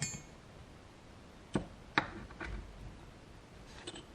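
Small metal tools and parts being handled: a transfer punch tried in a hole, giving a handful of light clicks and knocks. The first has a short metallic ring, and two louder knocks come about a second and a half and two seconds in.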